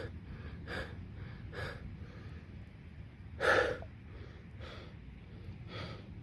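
A man panting hard, out of breath after running: short gasping breaths about one a second, with one louder gasp about halfway through.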